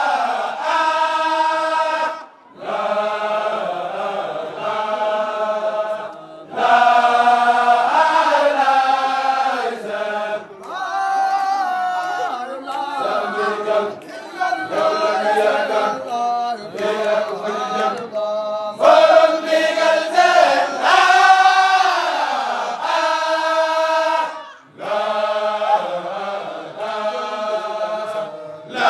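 A group chanting a Mouride Baye Fall zikr without instruments, in long sung phrases with brief pauses between them.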